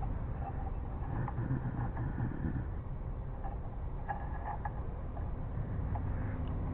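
A few light clicks and taps of small metal engine parts being handled against a flat piece, with most of them around four seconds in, over a steady low rumble.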